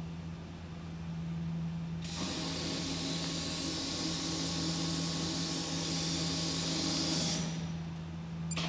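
Industrial sewing machine stitching the side hem of a lined curtain: it starts about two seconds in, runs steadily with a high, noisy whir for about five seconds, then stops. A steady low hum lies underneath, and a couple of sharp clicks come near the end.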